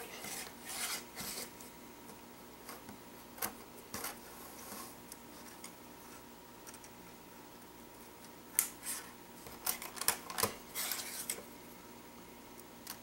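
Small plastic toy train track pieces clicking and rattling as they are handled and snapped together on a tabletop. The clicks are scattered, with a busier cluster a little past the middle.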